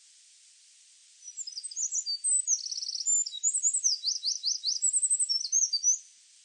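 A songbird singing one varied, high-pitched song of quick trills, rapid repeated notes and steep downslurred whistles, starting about a second in and stopping shortly before the end. A faint steady hiss lies underneath.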